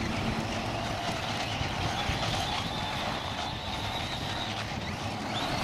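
Traxxas Stampede 4x4 VXL RC monster truck's brushless electric motor whining as it drives over loose dirt. The high whine holds steady, fades out past the middle, and rises again near the end.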